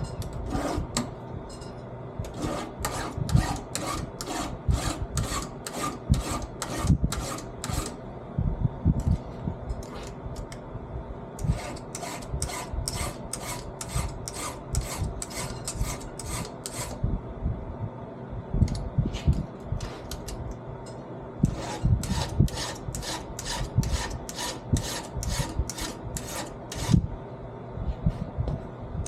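Hand file rasping across the teeth of a chainsaw chain clamped in a chain vise: quick repeated strokes, about two a second, in runs with short pauses between them.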